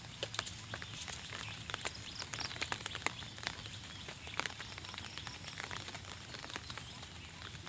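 Light rain pattering, with individual drops ticking irregularly and close over a soft, steady hiss.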